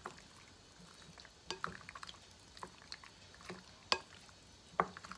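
A utensil stirring buttered pasta in a dish: scattered, irregular clinks and knocks against the side, the loudest about four seconds in.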